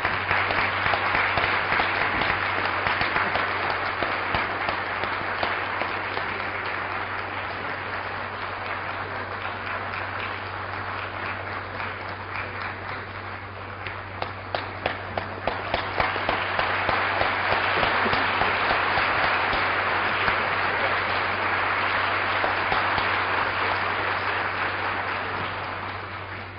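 Assembly delegates applauding at length. The applause thins about halfway, with single claps standing out, swells again and fades near the end. A steady low hum runs underneath.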